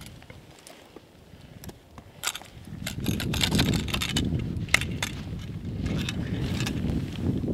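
Ice axe picks scraping and clicking on rock during dry-tooling, with metal climbing gear clinking. From about three seconds in, a low rushing of wind on the microphone.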